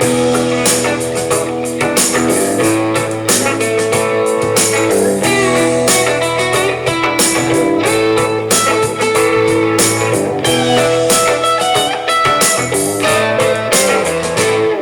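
Guitar music played through a Gemini WRX-843 powered column array speaker with its DSP set to speech mode, heard from about 24 feet away in the room. The music cuts off at the very end.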